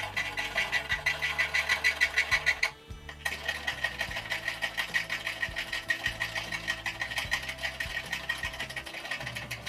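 Fast, even mechanical clicking or rattling, about six clicks a second. It stops for about half a second near three seconds in, then starts again.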